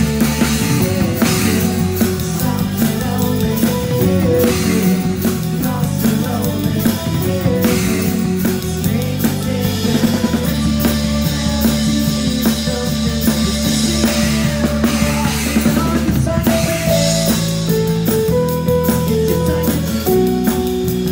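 Rock band music: a drum kit with bass drum and snare keeping a steady beat under sustained, changing notes from bass and other pitched instruments, with no singing.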